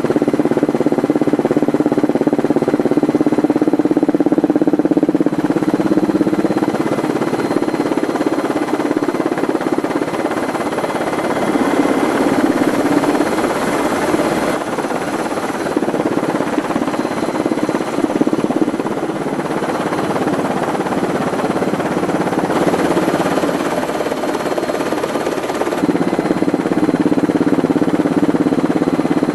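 Steady drone of an aircraft's engine heard from aboard, its tone shifting a few times, about five, fifteen and twenty-six seconds in.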